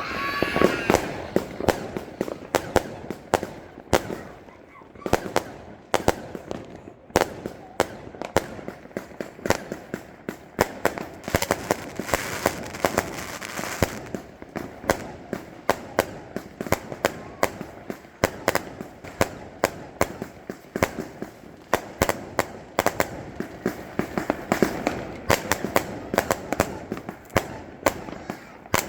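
Firecrackers on a fireworks board going off in a fast, irregular string of sharp bangs, with a burst of denser crackling about halfway through.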